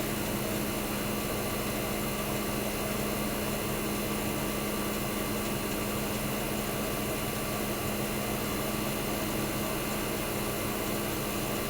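1965 Fedders Weather Wheel 12,000 BTU window air conditioner running steadily: a constant hum from its reciprocating compressor under the rush of fan-blown air. It is running with outside fans cooling the condenser because its own condenser fan motor is out of action.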